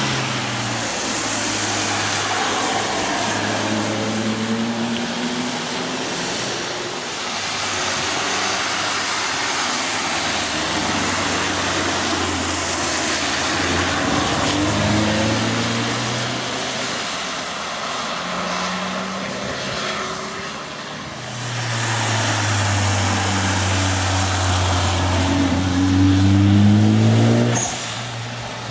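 Cars driving past one after another on a wet race track, their engines rising and falling in pitch as they brake and accelerate through the corners, over a steady hiss of tyres on the soaked tarmac. The loudest car passes near the end, its engine climbing and then cutting away.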